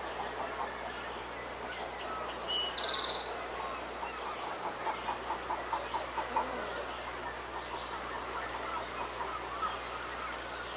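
Birds calling over a busy background chorus. A short, high trill comes about two to three seconds in, and a quick run of repeated notes, about five a second, comes near the middle.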